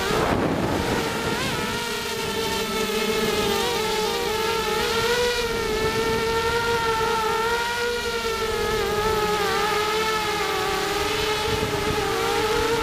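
The brushless motors and propellers of a ZMR250 racing quadcopter whining in flight, the pitch rising and falling continually as the throttle changes. There is a short rush of noise near the start.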